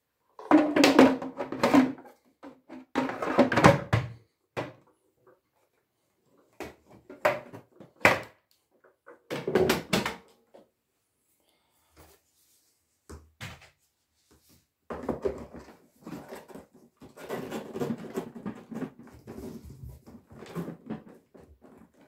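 Hard plastic parts of a Samsung VW17H9090HC canister vacuum being handled and fitted together: irregular clunks, clicks and scrapes in short bursts as the dust container and filter housing go back into the body. The handling gets busier in the last several seconds as the hose is taken up.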